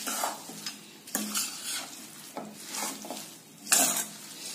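Metal ladle stirring boondi soaked in sugar syrup and ghee in a steel pot: a wet rustle of the sticky pearls with light clinks of the ladle on the pot, in strokes about once a second, the loudest near the end.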